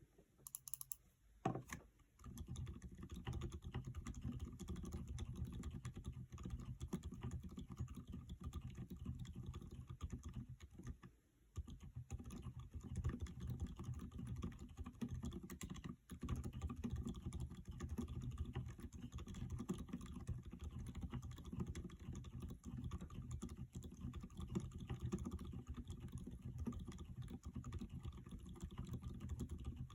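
Fast, continuous typing on a mechanical keyboard fitted with aftermarket switches and keycaps. The keystrokes start about two seconds in and stop briefly about a third of the way through.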